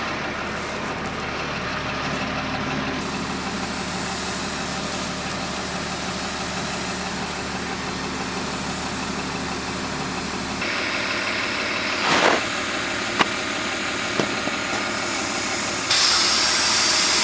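M35A3 Deuce and a Half truck's diesel engine idling steadily. A few sharp knocks come around two-thirds of the way through, and a loud burst of hissing air comes near the end.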